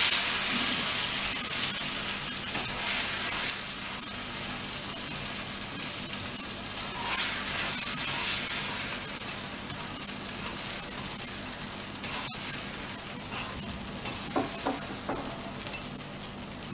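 Watery cucumber thalipeeth batter sizzling on a hot griddle as it is spread thin with the bottom of a small bowl. The sizzling slowly dies down as the batter settles.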